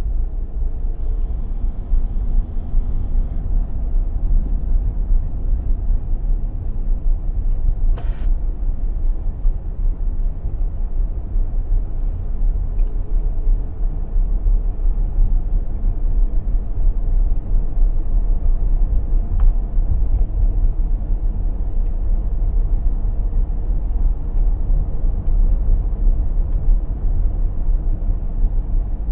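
Steady low rumble of a car driving along a city street, road and engine noise heard from inside the car, with one sharp click about eight seconds in.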